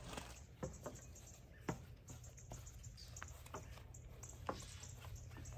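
Quiet yard ambience: a low steady hum with scattered faint, short clicks and ticks.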